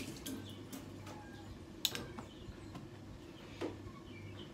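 Low, steady hum with a few faint clicks and knocks from hands working at a steel kitchen sink and tap.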